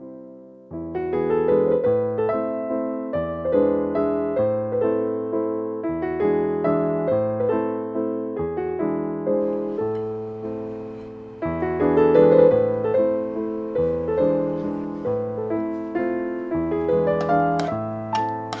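Background piano music, a gentle tune of decaying notes. Near the end, a spoon scrapes repeatedly against the enamel pot while stirring thick custard.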